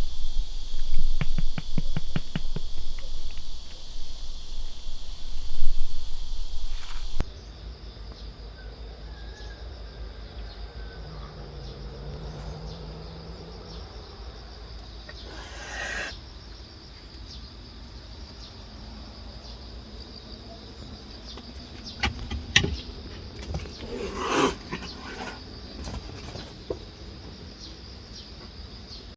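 Insects chirring steadily, a high continuous trill. It is louder over the first seven seconds or so, with a run of quick ticks, then drops off suddenly. A few brief rustles or knocks come later on.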